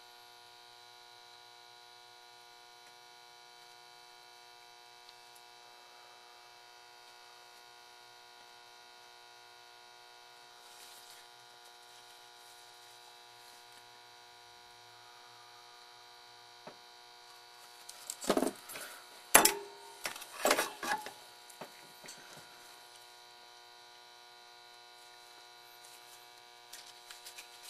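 A steady electrical hum made of several held tones, faint throughout. About two-thirds of the way through comes a short cluster of loud knocks and clatter, as tools and the circuit board are handled on the bench.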